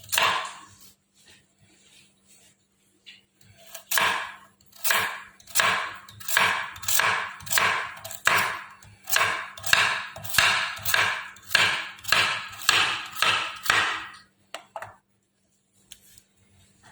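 Knife slicing carrots on a cutting board: a steady run of cuts, about two a second, starting about four seconds in and stopping about ten seconds later.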